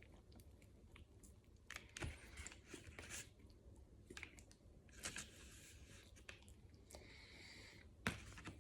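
Faint chewing of a cupcake, with scattered soft clicks and short rustles, the loudest a little after 2 s, around 5 s and just after 8 s.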